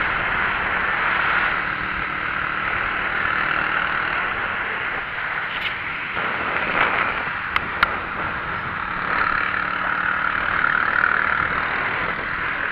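Steady rushing road and wind noise from a bicycle being ridden along an asphalt road, picked up by a camera mounted on the bike, with two sharp clicks in quick succession about seven and a half seconds in.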